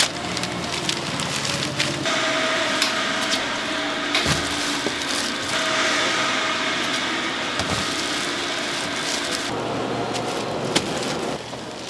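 Fish cakes deep-frying in hot oil on an automated fish cake line: a steady crackling sizzle with many small pops, over a steady machine hum.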